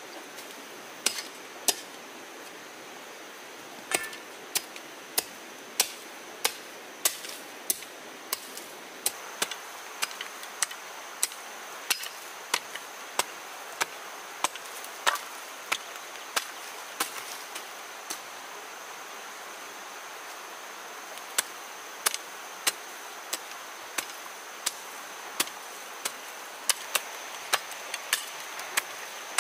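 Metal hoe blade chopping into ash-covered soil in repeated short strokes, about one to two a second, with a pause of a few seconds about two-thirds of the way through.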